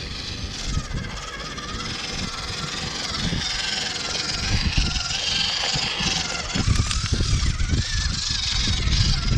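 Electric motor and gearbox of a 1/16-scale WPL RC crawler truck whining as it creeps over rocks, the pitch wavering with the throttle. Low rumbling thumps grow heavier about two-thirds of the way in.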